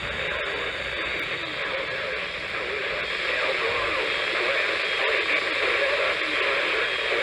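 NOAA Weather Radio receiver tuned to a weak channel: steady static hiss with a faint broadcast voice buried in it.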